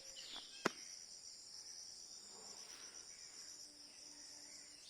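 Steady high-pitched insect chorus, with a single sharp click just under a second in.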